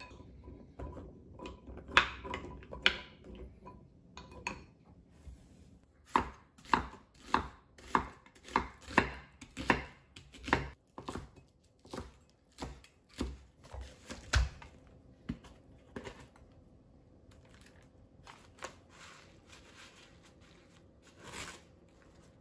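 Kitchen knife chopping green onion on a wooden cutting board: a steady run of chops about two a second for roughly eight seconds in the middle. Before it, a few clinks of a wooden spoon against a ceramic bowl; near the end, a short paper rustle.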